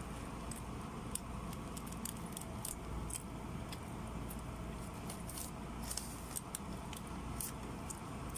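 Irregular sharp crinkles and clicks of a thin plastic carrier bag and aluminium foil takeaway tray being handled while eating by hand, over a steady low hum.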